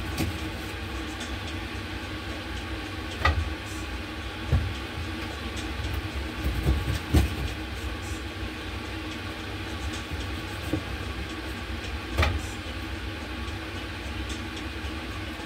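Pots and utensils knocking a few times at a gas stove during cooking, over a steady low rumble and hum.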